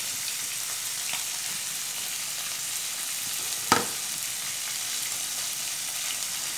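Hot oil sizzling steadily as floured pieces of som ton (fermented pork) deep-fry, with one sharp clink a little past halfway.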